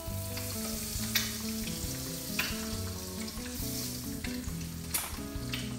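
An egg frying in hot oil in a wok: a steady sizzle, broken by four sharp clicks spread through it.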